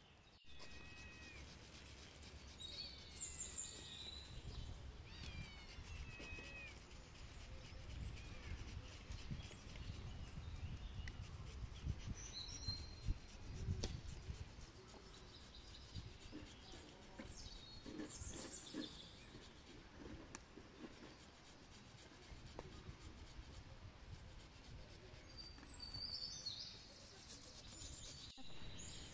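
Small birds chirping on and off over a low rumble, with soft scraping of an onion being rubbed on a plastic hand grater.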